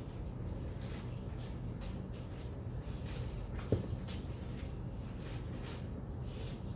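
Faint handling noises of beading cord being threaded through beads, with light ticks and one sharp click about halfway through, over a steady low hum.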